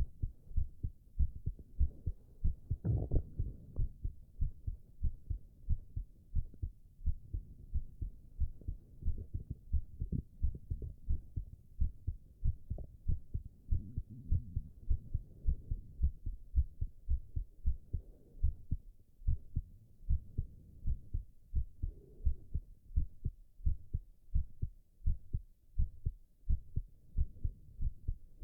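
A man's heartbeat heard close through the chest, beating in a steady, even rhythm of low thumps, with low stomach gurgling rising under it at times and a brief louder sound about three seconds in.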